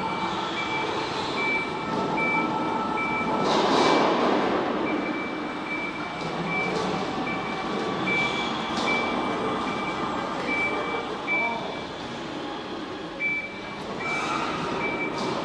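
Hangfa OmniTurtle omnidirectional mobile platform moving on its mecanum wheels: a high warning beeper repeats steadily over the hum of its electric drive, with a brief louder rush of noise about four seconds in.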